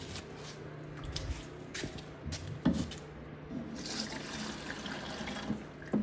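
Diesel fuel being poured from a container into a diesel heater's fuel tank, a steady trickling fill with a few light knocks of the container.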